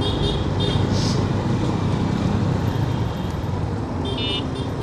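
Motorcycle engine running steadily while riding in road traffic, with wind and road noise. Brief high-pitched chirps come in the first second and again near the end.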